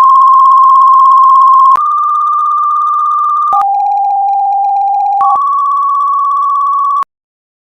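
Four long buzzy electronic tones in a row, each held a little under two seconds: the first, the loudest, steps up to a higher tone, then drops to a lower one, then rises again, and the last cuts off abruptly. This is the closing tone sequence of a mock emergency alert broadcast.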